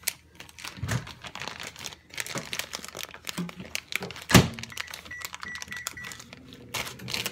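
Plastic bag of shredded cheese crinkling and rustling as it is handled and shaken out, with scattered light knocks and one sharp thunk a little past four seconds in.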